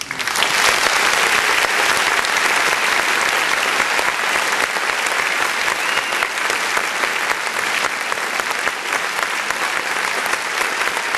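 Audience applause: dense clapping that starts abruptly and keeps up at an even level.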